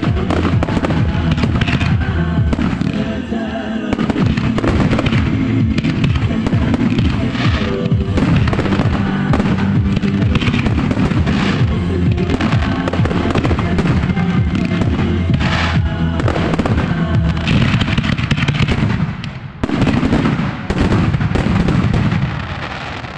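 Fireworks display: a dense, continuous barrage of aerial shells bursting and crackling over music, briefly thinning about nineteen seconds in and dying down near the end.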